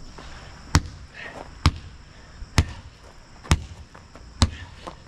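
Five sharp knocks, evenly spaced about once a second, keeping time with fast two-handed propeller swings of a long heavy bar.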